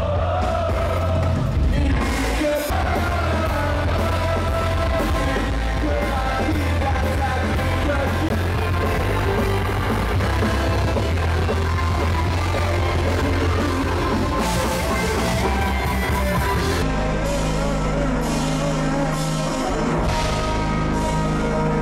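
Loud live rock band playing through a concert PA, with singing and a crowd yelling along. The sound changes abruptly about three-quarters of the way through.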